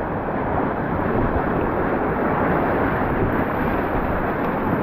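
Steady rush of churning whitewater close around a whitewater kayak as it paddles through a rapid.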